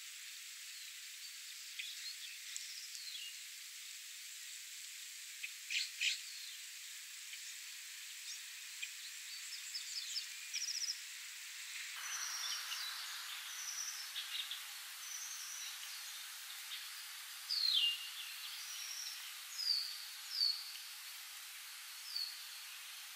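Steady hiss of light spring rain with birds calling here and there. After a cut about halfway through, the hiss sounds fuller and a bird gives several short, falling whistled notes, the loudest near the end.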